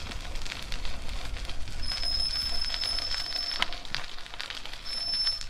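Bicycle's front brake squealing while braking: a high, steady squeal of about two seconds starting about two seconds in, then a short one again near the end, over the steady rush of riding.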